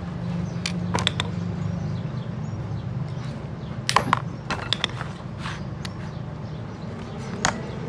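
Metal tools clinking and tapping against each other several times over a steady low hum.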